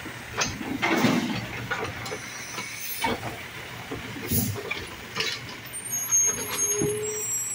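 Automated side-loading garbage truck emptying a wheeled trash cart: a string of bangs and clunks as the hydraulic arm lifts and shakes the cart over the hopper and sets it back down, the loudest about a second in. The truck's engine runs underneath, with a short hiss of air and a brief steady tone near the end.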